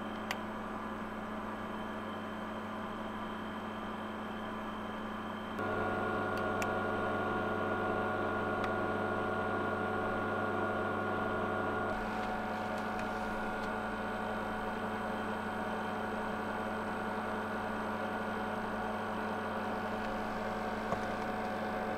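Portable air conditioner running: a steady hum from its compressor and fan with several fixed tones, getting louder about five and a half seconds in.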